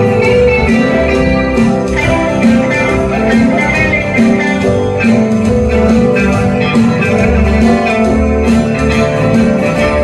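Live band playing a song on guitars: strummed acoustic guitar, electric guitar and bass guitar.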